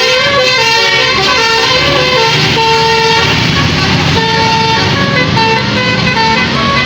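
Tour bus telolet basuri multi-tone horn playing a quick tune of short notes that step up and down in pitch without a break, over a low rumble.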